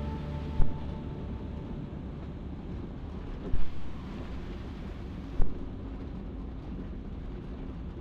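Ikarus C42 microlight rolling along the runway after landing: a steady engine rumble and air noise, with three sharp thumps as the wheels and undercarriage hit bumps, about half a second, three and a half and five and a half seconds in.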